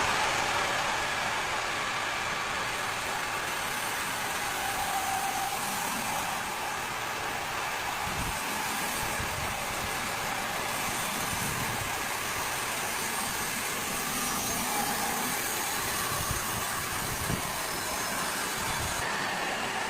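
A chainsaw running, a steady continuous drone with a faint whine that wavers slightly in pitch.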